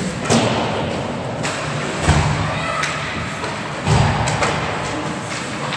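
Three heavy thuds against ice-rink boards and glass, about two seconds apart, during a hockey game. Sharper clacks of sticks and puck fall in between.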